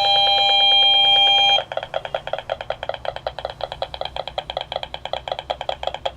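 Handheld RF meter's audio output sounding as it picks up the Bluetooth signal from Apple AirPods at close range, strong enough to max out the meter. A steady high tone cuts off about a second and a half in and turns into a rapid, even pulsing chatter.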